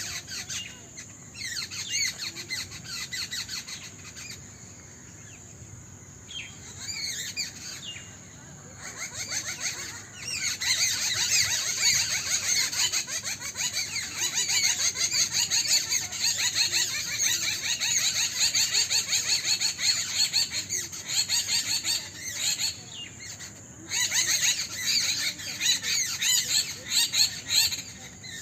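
Many small birds chirping and chattering in a dense chorus of rapid, high-pitched notes, sparse at first and much busier from about ten seconds in.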